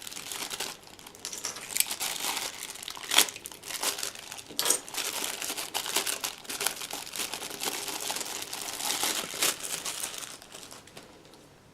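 Packaging being handled and unwrapped: irregular crinkling and crackling with a few sharper, louder crackles, dying away near the end.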